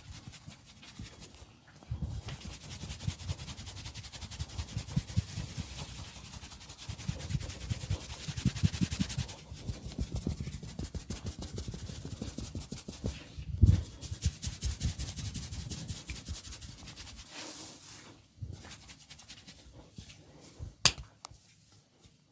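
Hands rubbing rapidly over skin in fast friction strokes during a massage. The strokes come in several runs with short breaks. There is one heavy thump about two thirds of the way in, and a single sharp snap near the end.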